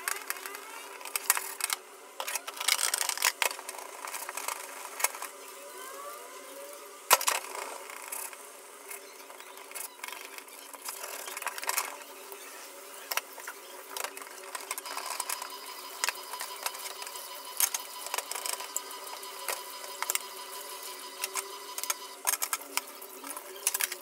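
Plastic refrigerator shelves and door bins clattering and knocking against a stainless-steel sink as they are handled and scrubbed with a sponge: irregular clicks and knocks throughout, the sharpest about seven seconds in.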